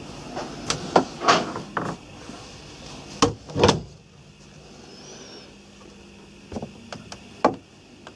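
Knocks, clicks and thumps of a wooden cabin door on a motor cruiser being handled as someone goes through the doorway, about a dozen sharp hits over several seconds, the loudest pair about three and a half seconds in.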